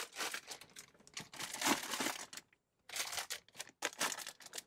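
Plastic food packets crinkling and rustling as they are handled and stacked inside a fridge, in several irregular bursts.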